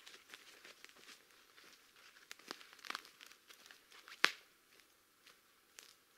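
Footsteps crunching over dry pine needles and twigs on the forest floor, with scattered crackles and one sharp twig snap a little after four seconds in.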